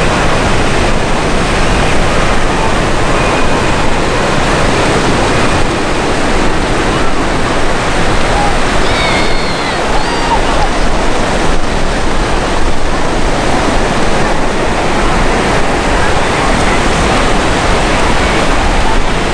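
An A-10 Thunderbolt II's twin TF34 turbofan engines in flight, heard as a loud, steady rushing roar.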